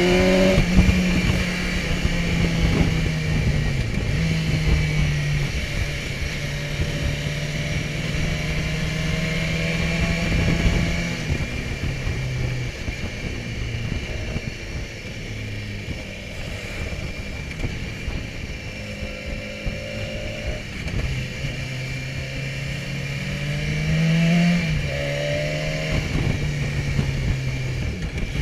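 BMW S1000XR's inline-four engine running on the road, its pitch stepping up and down with throttle and gear changes several times and climbing near the end as it accelerates. A steady rush of wind noise runs underneath.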